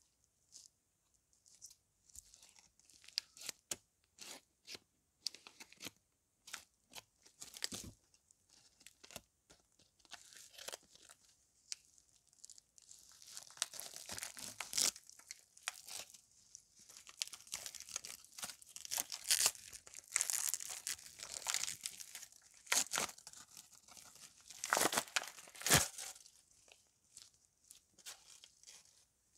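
Plastic wrapper of a DAS modelling-clay pack crinkling and tearing as it is ripped open and peeled back. Scattered crackles at first, then dense tearing and crinkling from about halfway through, loudest near the end.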